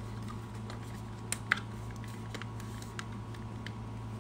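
Small plastic clicks and taps as hands press the pieces of an electric scooter's plastic front fender together over the wheel, the loudest pair of clicks about one and a half seconds in, over a steady low hum.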